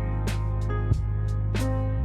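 Background music: guitar-led, with a steady bass and a regular beat.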